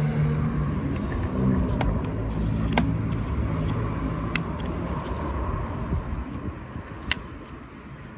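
A motor vehicle's engine running, loudest in the first couple of seconds and fading away over the next several, with a few sharp clicks.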